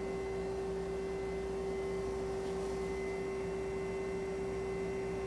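Amada Meister V3 CNC form grinder running: a steady machine hum with one clear, unchanging mid-pitched tone on top.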